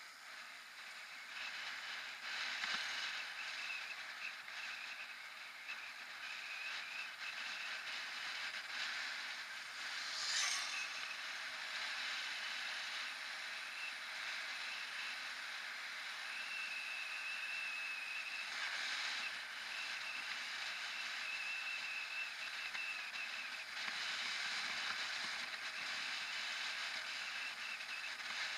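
Wind rushing over the microphone and mountain-bike tyres rolling on asphalt while riding along a paved road. A thin high whine comes and goes, and a brief sharp sound stands out about ten seconds in.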